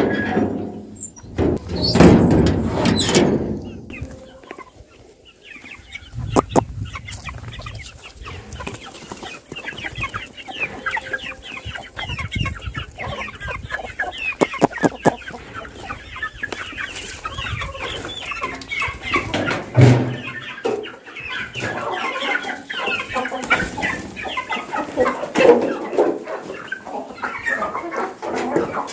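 A flock of chickens clucking continuously, many birds calling over one another. A loud low rumble comes in the first few seconds.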